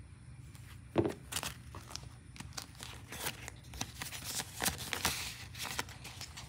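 Paper banknotes rustling as they are flicked through, and a clear plastic zip pouch in a binder crinkling as it is opened to take the cash. There is a sharp tap about a second in, then a run of crisp rustles and clicks.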